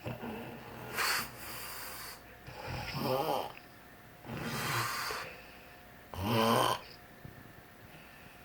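Loud snoring in sleep: four snoring breaths come roughly every one and a half to two seconds, the loudest about six and a half seconds in, then fainter breathing.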